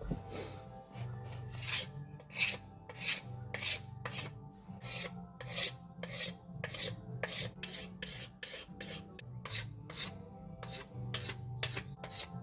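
Hand file rasping against the new hatchet in steady, even strokes, about two a second.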